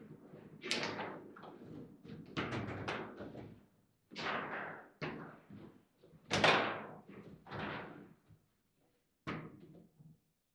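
Table football game in play: an irregular run of sharp knocks and slams as the hard ball is struck by the plastic players and bangs against the table's walls and rods. The hits come about once a second and stop near the end.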